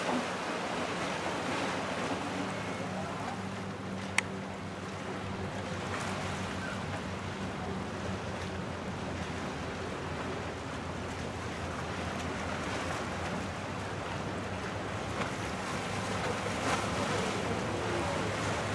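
Wind and water noise over the steady low hum of a motorboat engine, with a single sharp click about four seconds in.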